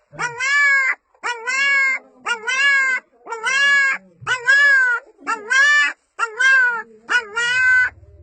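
Puppy crying repeatedly: eight drawn-out, human-like calls about one a second, each rising and then falling in pitch, as it calls for its mother.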